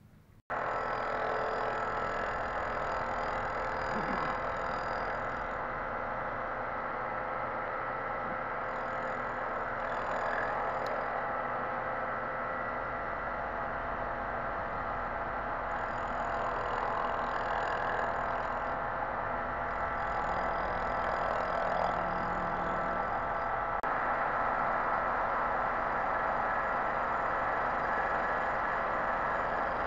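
Surfacing machine's rotating cutter skimming the face of an aluminium cylinder head to level it after its coolant channels were welded up: a steady machining whir with a few faint steady tones, starting abruptly about half a second in.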